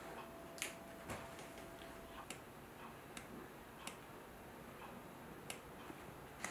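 A dog rummaging in a plush snuffle toy: sparse, irregular light clicks and taps, about one a second, as it noses and mouths the toy and shifts its paws.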